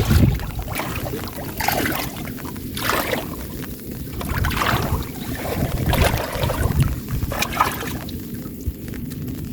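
Water sloshing and splashing in irregular swells, with wind buffeting the microphone.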